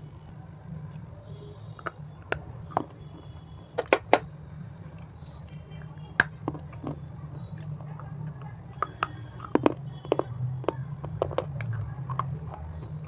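Crunchy layered chips bitten and chewed close to a lapel microphone: a run of sharp, irregular crunches and snaps, with busier stretches near the start and again in the second half, over a steady low hum.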